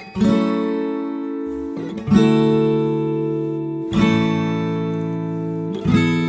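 Background music on acoustic guitar: a chord strummed about every two seconds, each left to ring and fade.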